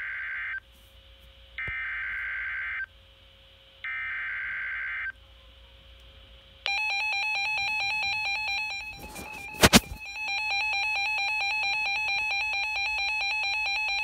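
Emergency Alert System tones. First come three roughly one-second bursts of the SAME digital header's warbling data tone. About six and a half seconds in, the steady two-tone attention signal starts. Near ten seconds the tone briefly dips and two sharp, loud clicks cut across it.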